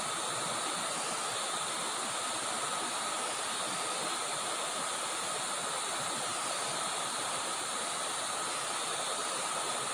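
Steady rush of river water flowing, with a thin steady high tone running over it.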